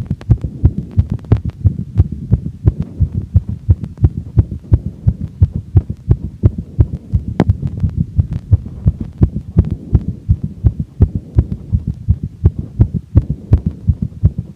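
A woman's heart beating fast after exercise, picked up through a stethoscope: quick, even low thumps at about 175 to 180 beats a minute, roughly three a second.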